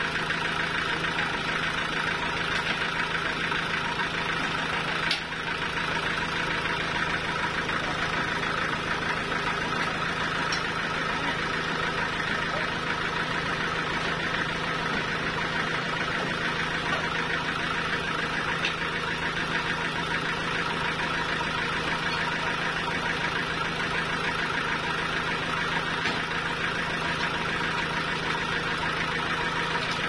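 Stationary diesel engine of a home-made band sawmill running steadily, with no cutting under way. A single knock sounds about five seconds in.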